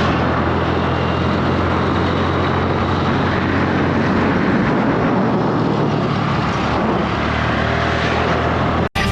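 Motorcycle engine running steadily while riding at road speed, with wind rushing over the microphone. The sound cuts off abruptly near the end.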